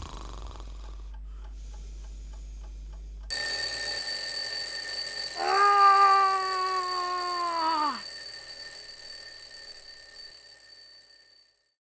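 Twin-bell alarm clock starts ringing suddenly about three seconds in, a steady bright ring that fades away near the end. Over it, a man lets out a long, drawn-out groan for a couple of seconds that drops in pitch as it ends.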